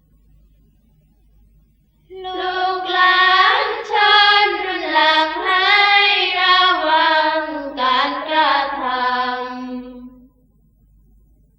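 Sarabhanya chant to an Isan melody: voices in unison hold one long, drawn-out sung phrase, starting about two seconds in and sliding slowly lower in pitch before ending about two seconds before the end.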